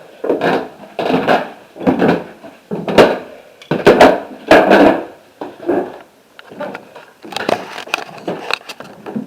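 Footsteps on wooden boards, loud thuds with creaks and scrapes at an uneven walking pace.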